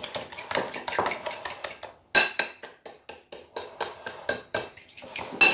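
Metal fork whisking eggs and cinnamon in a ceramic bowl: a rapid, irregular clatter of fork against bowl, with two louder ringing clinks of the fork striking the bowl, about two seconds in and near the end.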